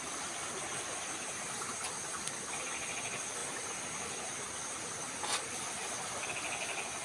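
Night crickets chirping in short rapid trills over a steady high insect hiss, with a single brief click about five seconds in.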